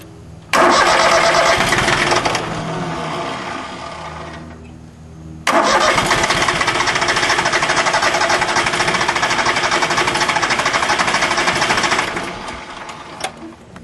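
Yanmar YM1401D three-cylinder diesel tractor engine cranked on its starter twice without catching: a shorter crank that fades, then a steady crank of about six seconds. Air in the injector lines after a fuel-filter change is keeping it from firing.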